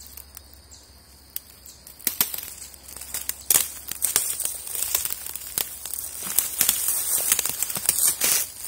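Dry autumn leaves and twigs crackling and rustling in irregular snaps, sparse for the first two seconds and then dense and louder.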